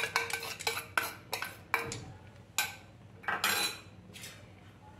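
Washed toor dal being tipped from a steel bowl into an aluminium pressure cooker, the bowl clinking and scraping against the cooker: a quick run of sharp clicks and clatters in the first two seconds, then a few sparser knocks and scrapes.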